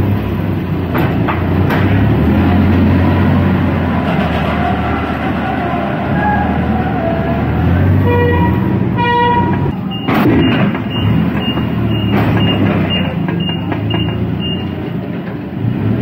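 Forklift engines running steadily, with two short horn toots about eight and nine seconds in. A clank follows, then a row of about eight high backup beeps, roughly two a second.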